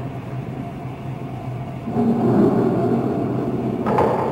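Low rumbling soundtrack ambience over a steady hum. It swells louder about halfway through, and a sharp knock comes near the end.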